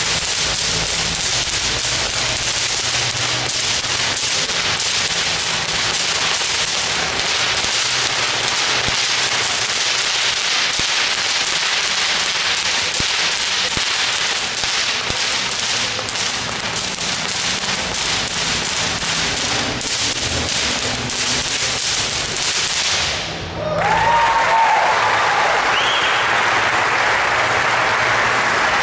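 Two whips cracked in a fast, even rhythm, imitating a horse's hoofbeats as it goes through its gaits. The cracking stops about 23 seconds in and applause follows.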